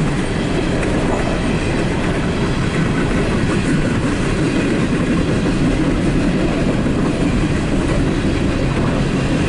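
Empty coal hopper cars of a CSX train rolling past, wheels on the rails making a steady rumble and clatter, heard from inside a vehicle.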